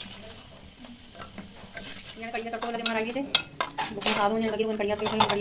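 Food sizzling in hot oil in a pan while a metal spatula and ladle stir and scrape against the pan, with clinks of metal on metal.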